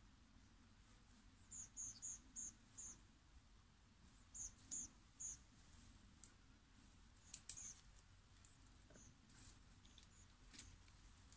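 Near silence with faint, high-pitched chirps from a small animal, in short runs of three to five quick notes about two and four seconds in, and a few faint clicks.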